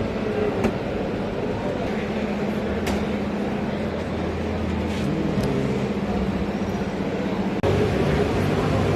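Steady mechanical hum of machinery running, its pitch shifting a few times, with a few sharp clicks.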